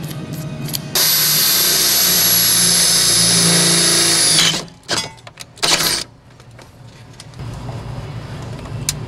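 Makita 18-volt cordless drill running at full speed for about three and a half seconds with a steady high whine that drops as it stops, followed by two short bursts on the trigger.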